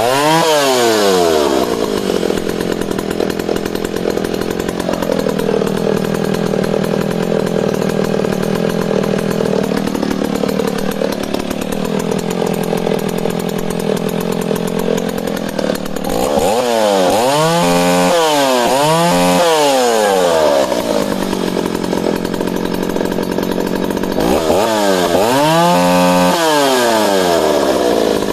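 Vintage West German Dolmar CA two-stroke chainsaw catching and revving up at once, then running steadily for several seconds. Later it is revved up and back down several times in quick succession, twice over.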